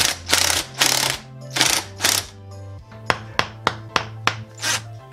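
Electronic background music with a bass line and a steady beat of sharp percussion hits.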